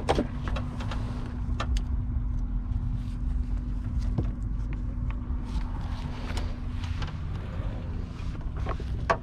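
Steady low rumble of a running vehicle engine, with a thin steady hum that stops about seven seconds in. Scattered light clicks and taps sound over it.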